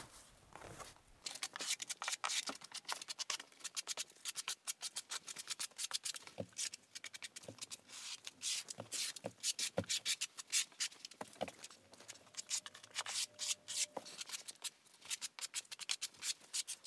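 Steel half-inch square-notch trowel scraping and combing modified thinset mortar across a floor, a quick, uneven run of short scratchy strokes.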